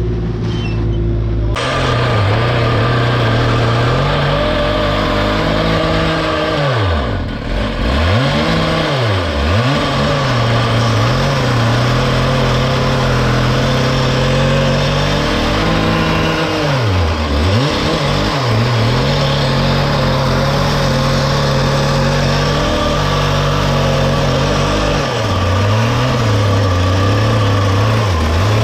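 Engine of small earthmoving equipment running at working speed. Its pitch sags sharply and recovers several times as it takes load.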